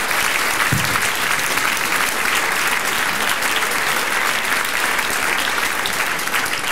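Audience applauding, many hands clapping steadily, with a short low thump about a second in.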